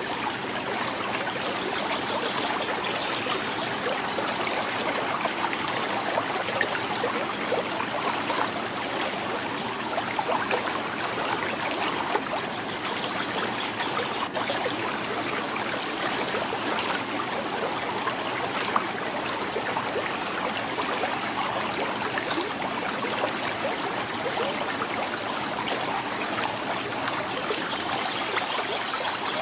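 Shallow river flowing steadily, water gurgling and trickling over stones.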